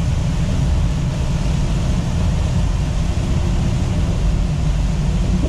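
Inside a semi-truck's cab at highway speed in heavy rain: the diesel engine and tyres make a steady low rumble, under an even hiss of rain and road spray.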